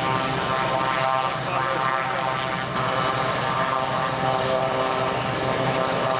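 Piston engine of a vintage propeller aircraft running steadily at low power while taxiing.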